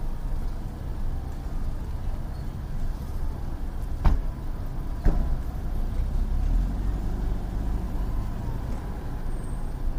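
Steady low background rumble, with two sharp knocks about four and five seconds in.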